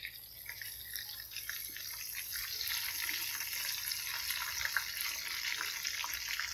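Oil sizzling in a frying pan around pieces of frying tofu: a steady hiss dotted with small crackling pops, growing a little louder over the first few seconds.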